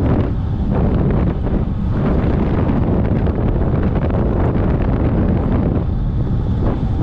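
Wind buffeting the microphone of a camera on a moving bicycle: a loud, steady rumble.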